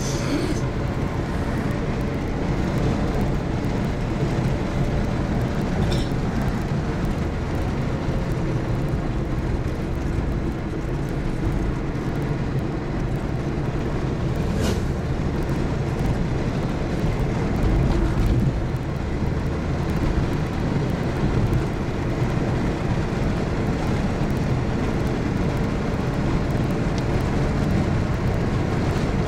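Car engine and road noise heard from inside the cabin while driving: a steady low rumble, with a couple of brief clicks partway through.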